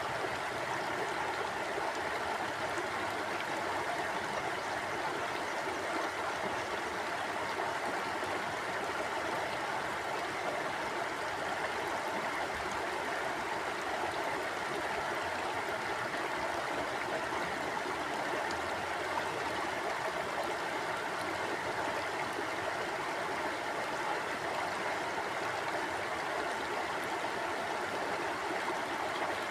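Stream of water flowing steadily over rocks, a continuous rushing and babbling.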